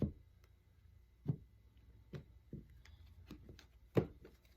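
Five soft taps of cards being handled and set down on a table: one at the start, then at about one, two and two and a half seconds, and the loudest near the end.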